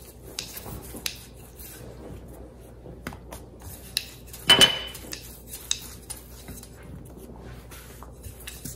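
Thin wooden rolling pin rolling out dough on a silicone baking mat: scattered soft taps and knocks, with one louder clatter about halfway through.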